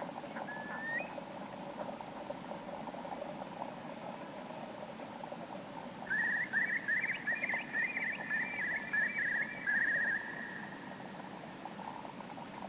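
Red-throated diver (red-throated loon) calling: a short rising whistle about half a second in, then from about six seconds a fast run of short, high notes lasting some four seconds that trails off, over a faint steady background.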